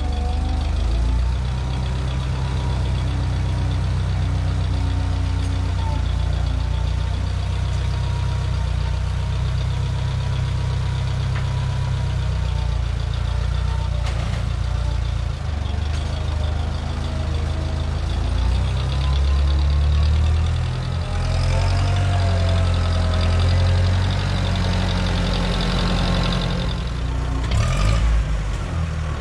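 Tractor engine running, its speed rising and falling as it handles implements, with a faint whine that bends up and down. A clank comes near the end.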